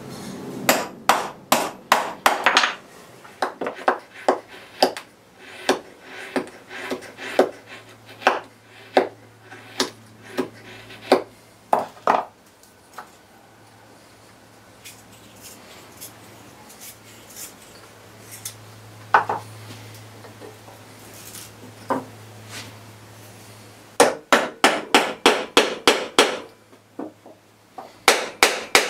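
A steel hammer strikes the end of wooden stock, driving it through a steel dowel plate to round it into a peg. There is a quick run of sharp blows, then a quieter stretch with a low hum and a few single knocks, then another fast run of blows near the end.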